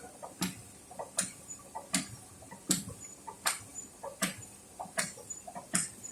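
Three-side-seal plastic bag cutting machine running in steady cycles, a sharp clack about every three-quarters of a second with smaller knocks between.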